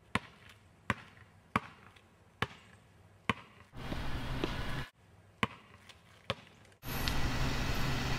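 Basketball dribbled on an asphalt driveway, a sharp bounce a little less than once a second, seven bounces in all. Twice the bouncing breaks off for about a second of steady noise from a car driving along a road, the second stretch near the end.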